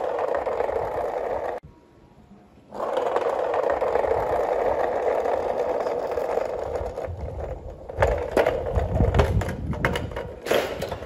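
Handmade wooden model Toyota Fortuner driving on asphalt: a steady, rough rolling and scraping noise from its wooden wheels and drive. It breaks off for about a second near the start, then resumes. In the last few seconds it turns into irregular knocks and thumps as the car bumps over rough concrete.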